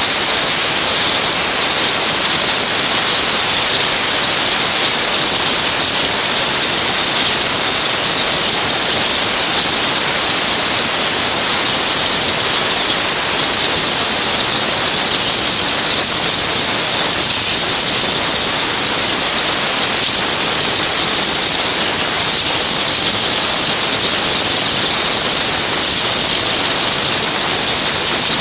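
CNC waterjet cutter's high-pressure jet cutting through thick steel plate: a loud, steady, high-pitched hiss.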